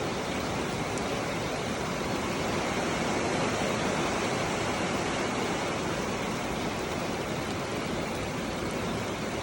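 Heavy rain falling on a barn roof: a steady, even rush of noise.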